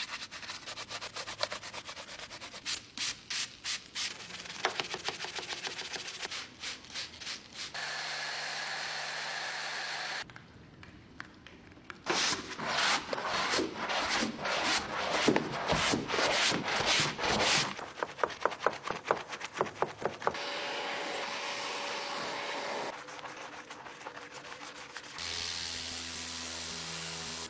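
Brushes scrubbing soapy, foam-covered car parts (a car battery, the underbody, an engine part) in quick back-and-forth strokes. The strokes come in several separate runs, loudest in the middle, with short stretches of steady hum between them.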